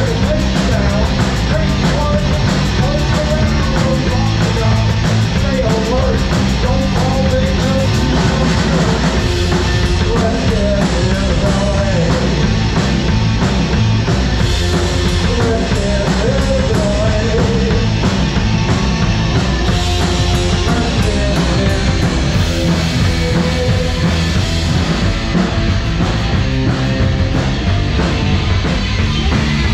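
Live rock band playing loudly: electric guitar through Marshall amplifiers over a full drum kit, with a wavering melodic line riding above a steady, driving low end.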